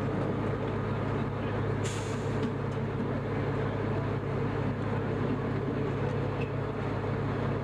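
Steady drone of a fire engine's diesel running at pump speed, under the hiss of a fire hose spraying water onto a burning car, with a short sharp hiss about two seconds in.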